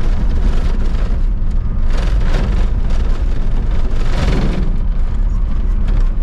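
Toyota Land Cruiser HZJ75 troop carrier's 4.2-litre six-cylinder diesel driving, a steady low rumble of engine and tyre noise with rough surges of road noise about two and four seconds in.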